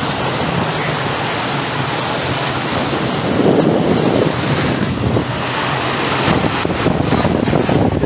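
Small sea waves breaking and washing up the sand at the water's edge, swelling briefly about halfway through, with wind buffeting the microphone.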